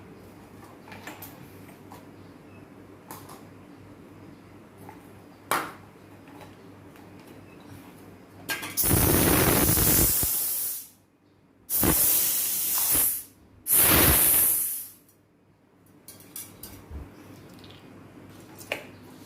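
Pressurised gas hissing out in three bursts, the first about two seconds long and the next two shorter, with faint clicks and ticks of handling before and after.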